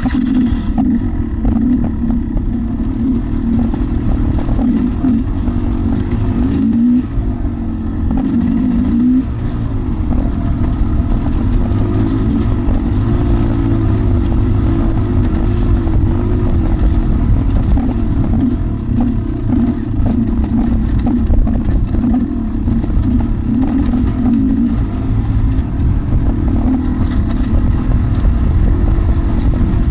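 KTM dirt bike engine running continuously, its pitch wavering up and down as the throttle is worked.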